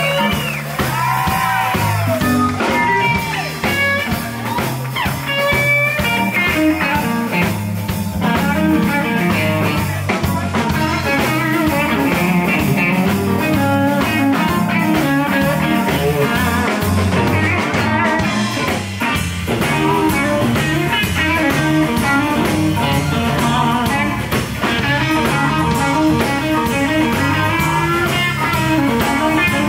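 Live blues band playing: electric guitar lead with bent notes and quick runs over bass, drums and keys.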